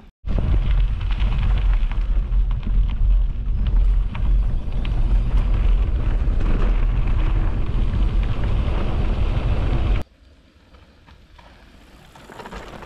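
Wind buffeting the microphone: a loud, steady low rumble with a rustling haze above it. It cuts off suddenly about ten seconds in, leaving a much quieter background.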